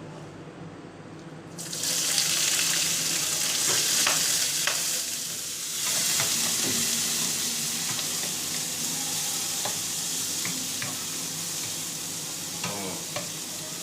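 Prawns and sliced calamari hit hot oil in a wok. A loud sizzle starts suddenly about two seconds in and keeps going, with scattered light clicks as they are stirred.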